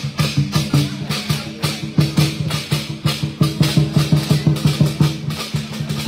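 Dragon dance percussion: a drum and clashing cymbals beating a fast, steady rhythm.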